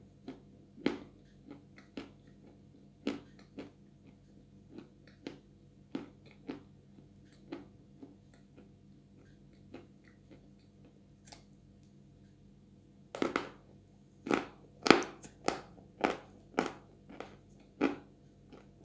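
Close-up chewing of Chuy edible clay, its sticky paste together with a bit of the dry clay: scattered soft clicks and crunches, then about two-thirds of the way through a quick run of louder crunchy bites.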